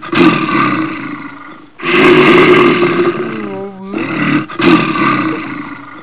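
Big cat roars standing in for a jaguar: three long, loud roars of about two seconds each, one already sounding at the start, the next about two seconds in, the last about four seconds in.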